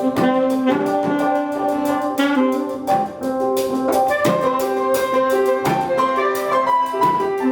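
Instrumental music: an acoustic, unplugged cover of a mobile phone ringtone, a short tune repeating over and over, played on horns with drums.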